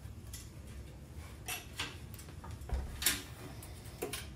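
Irregular light metallic clicks and scrapes as the steel cable of a mouthpipe dent tool is handled and worked through a euphonium's brass tubing, about six in all, the sharpest a little after three seconds in.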